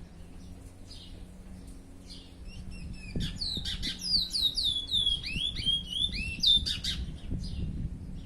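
Chestnut-bellied seed-finch (curió) singing: soft single notes at first, then about three seconds in a fast run of clear whistled notes, most sliding downward, lasting about four seconds, before it returns to soft notes.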